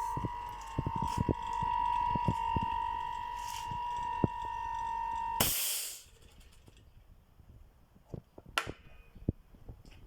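Refrigerator compressor, used as a homemade air compressor, running with a steady high hum and a patter of small clicks, then switched off about five and a half seconds in with a brief burst of hiss. After that only a few faint clicks.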